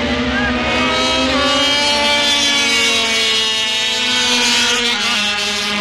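A pack of 50 cc two-stroke racing motorcycles screaming at high revs as they pull away. Many engine notes overlap and drift up and down in pitch, and a lower note joins in near the end.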